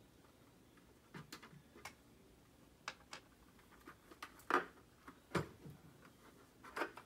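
Scattered light clicks and knocks of a plastic football helmet and its face mask being handled while the face mask screws are removed by hand: about eight sharp ticks, irregularly spaced, the loudest about halfway through.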